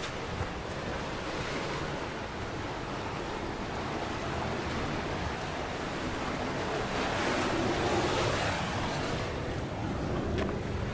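Mediterranean sea waves washing onto the shore, one wave swelling louder about seven seconds in, with wind rumbling on the microphone.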